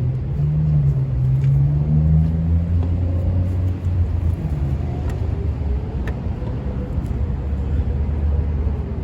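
Low, steady motor-vehicle engine rumble with a slight rise in pitch over the first few seconds, and a few faint clicks.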